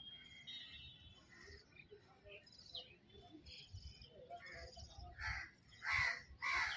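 Outdoor birdsong: chirps and rapid trills from several birds, then three loud, harsh bird calls near the end, which are the loudest sounds.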